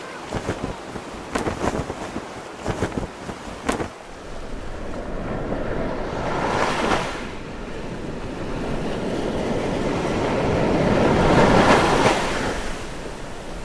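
Surf washing up a sandy beach, the rush of the waves swelling twice. A few short knocks sound in the first few seconds.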